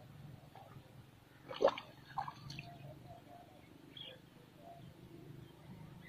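Shallow water splashing and dripping as a hooked catfish is pulled out by hand. One sharp splash comes about a second and a half in, followed by a couple of smaller splashes and drips.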